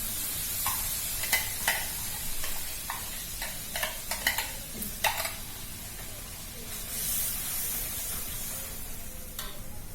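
Fried fish and spice paste sizzling in a hot pan, with a spatula stirring and knocking against the pan: a string of sharp clinks through the first half and one more near the end.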